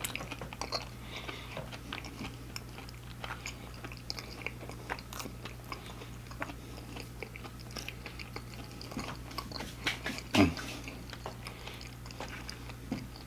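Close-miked chewing and biting of fried food: many small mouth clicks and crunches, with one louder mouth sound about ten seconds in.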